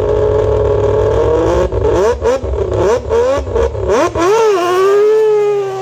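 Mazda RX8 rally car's naturally aspirated three-rotor 20B rotary engine idling, then revved in a quick series of sharp throttle blips from about two seconds in. Near the end it settles to a steady, slightly higher note.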